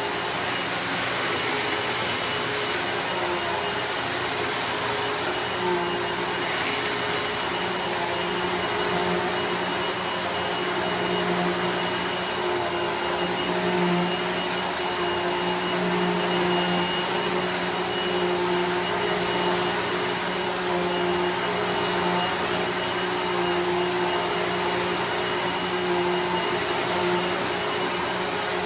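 Hoover WindTunnel MAX bagged upright vacuum cleaner running steadily while vacuuming: a continuous motor and airflow rush with a steady high whine.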